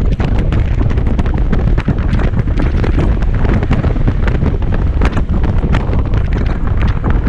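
Wind buffeting the microphone while riding a Kymco Xciting 250i scooter: a heavy, unbroken rumble with constant crackling gusts, and the scooter's running and road noise beneath it.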